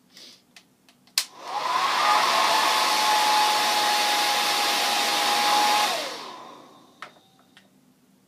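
Hair dryer clicked on, its motor spinning up with a rising whine into a loud, steady rush of air. After about four seconds it winds down, the whine falling away as it stops. It shuts off on its own, which the user takes for the dryer overheating.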